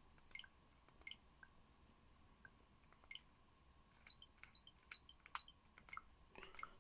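Faint, short clicks and little high blips of Nintendo Switch Joy-Con buttons being pressed and the console's menu sounds answering, a few per second from about four seconds in.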